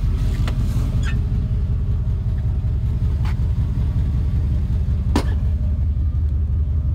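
Vehicle driving, a steady low engine and road rumble, with a few short clicks or rattles.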